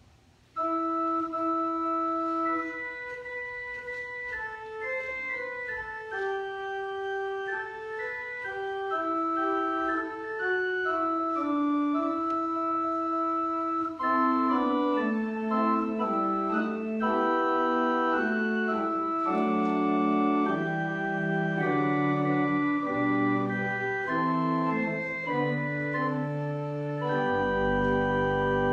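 Organ playing a slow prelude of held chords, starting about half a second in. From about halfway through, lower notes join and the sound grows fuller, with deep bass notes near the end.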